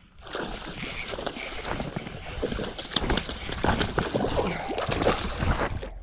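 A hooked bass splashing in shallow water at the bank as it is reeled in: a dense, irregular run of splashes and sloshing that starts a moment in.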